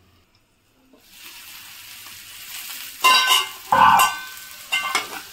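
Egg and onion fry sizzling in a non-stick pan, stirred with a spatula that scrapes against the pan in loud strokes about three and four seconds in. The first second is near silence.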